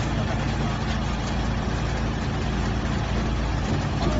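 55 kW wood chipper running, a steady loud low drone with an even rush of noise over it and a few faint ticks.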